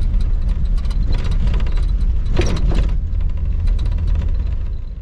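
Car driving on the road: a steady low rumble of engine and tyre noise, fading out at the very end.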